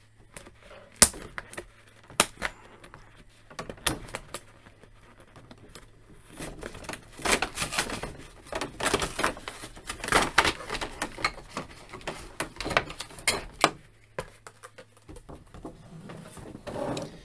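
Plastic packaging crinkling and rustling as hexagonal action-figure display bases are pulled out of a cardboard box, with sharp clicks of the bases knocking together. A few separate clicks come first, then a long stretch of dense crinkling in the middle.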